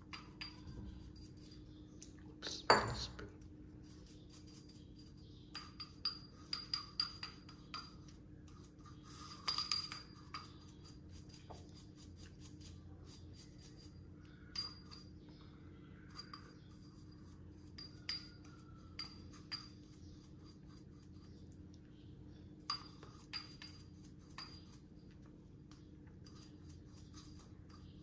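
Small metal parts of a Timemore Chestnut C3 ESP hand coffee grinder (burr, rings, spring) clinking and tapping against a hard surface as they are handled and brushed clean. Scattered light clicks and short runs of taps, with one sharper knock about three seconds in.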